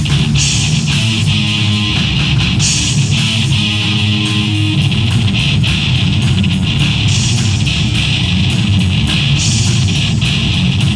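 Live rock trio playing loudly: electric guitar through a Marshall amp, bass guitar and a drum kit with ringing cymbals.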